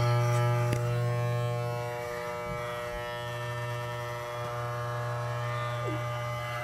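Electric hair clippers with a guard buzzing steadily as they trim the hair at the nape of the neck. The buzz gets somewhat quieter about two seconds in.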